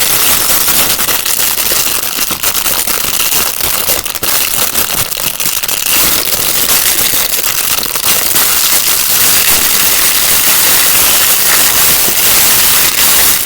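Small unicorn pop-it fidget toys being handled close to the microphone: a dense, steady crackling of many quick clicks that runs without a break.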